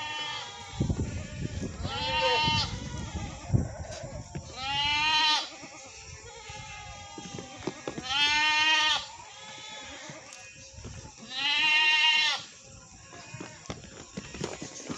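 Goats bleating: four long bleats of about a second each, spaced roughly three seconds apart, with the end of another at the very start. A low rumbling noise runs under the first few seconds.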